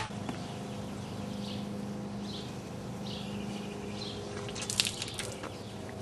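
Quiet outdoor ambience: a steady low hum with a few faint high chirps, and a short run of soft clicks or drips about five seconds in.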